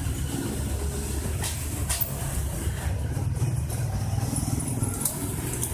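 A steady low mechanical rumble, with a few faint clicks.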